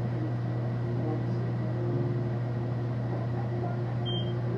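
Steady low mechanical hum of a running Doyon commercial oven and kitchen ventilation. About four seconds in comes a single short, high electronic beep from the oven's keypad.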